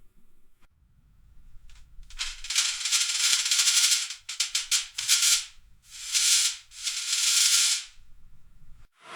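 A paper customs form being torn in several rips: a long, crackly tear about two seconds in, then three or four shorter rips.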